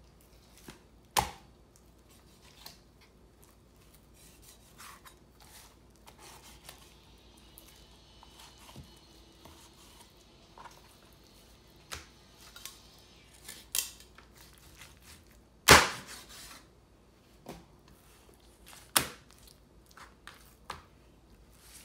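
Heavy cleaver chopping into a raw whole chicken on a plastic cutting board: about four hard, irregular chops, the loudest about two-thirds of the way through, with lighter knocks and cutting sounds between.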